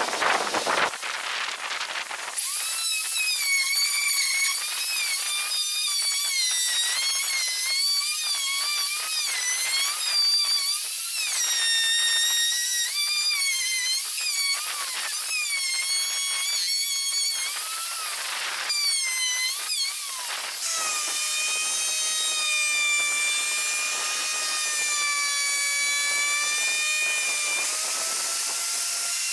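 Electric plunge router running at high speed, its bit cutting a shallow recess into a plywood table top for a router mounting plate. The whine starts about two seconds in after a few knocks and wavers up and down in pitch as the cut loads the motor. Over the last several seconds it holds a steadier pitch.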